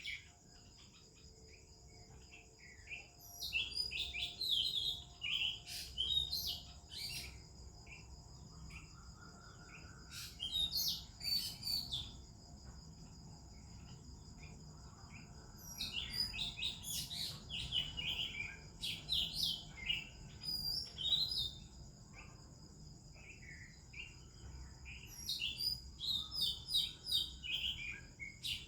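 Oriental magpie-robin and other birds singing in bursts of quick, varied whistles and chirps, with quieter gaps between phrases. A steady high-pitched whine runs underneath throughout.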